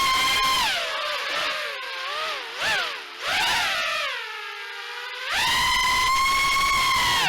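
FPV quadcopter's brushless motors and propellers whining as the throttle is punched and eased: a sharp rise in pitch at the start, wavering blips in the middle, a dip to a low steady hum, then a second punch about five seconds in held at high pitch.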